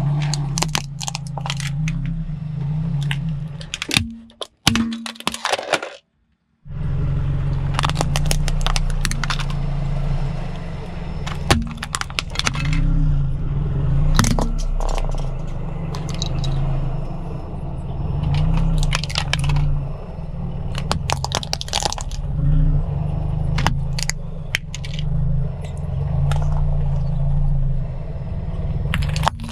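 A car engine running at a steady low idle while a tyre rolls over small objects, a die-cast toy car and plastic toys, crushing them with clusters of sharp cracks and crunches. The sound drops out for about half a second some six seconds in.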